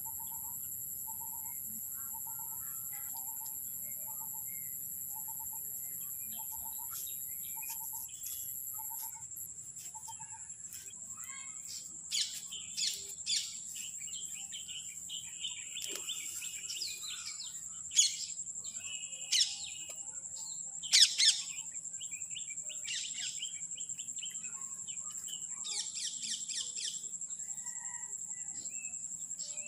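Birds calling: a short single note repeated about once a second at first, then louder sharp chirps from about twelve seconds in, loudest a little past halfway. A steady high insect drone runs beneath.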